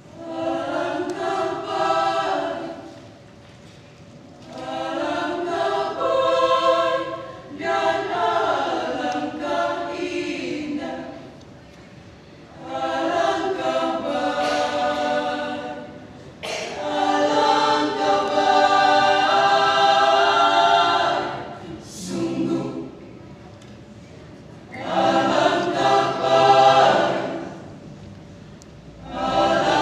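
Choir singing, in sustained phrases separated by short pauses.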